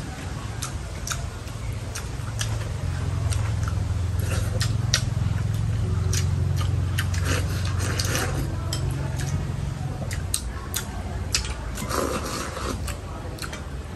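Irregular light clicks and clinks of spoons and chopsticks against bowls while eating, over a low steady rumble that swells in the middle.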